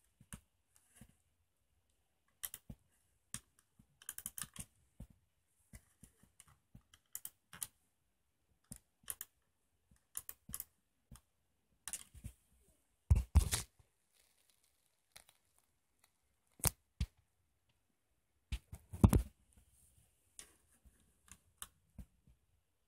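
Irregular small clicks and rustles, with louder knocks about thirteen and nineteen seconds in.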